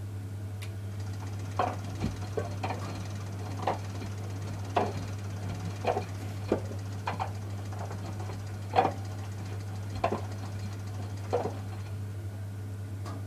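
Miele W 435 front-loading washing machine in its wash phase: the drum turning over a steady motor hum while the pillow tumbles and drops, giving a soft knock about once a second. The knocks stop near the end as the drum comes to rest.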